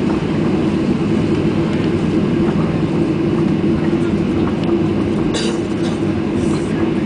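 Steady cabin noise of a Boeing 737-800, its CFM56-7B jet engines humming over a low rumble, heard from inside the passenger cabin while the aircraft moves on the ground.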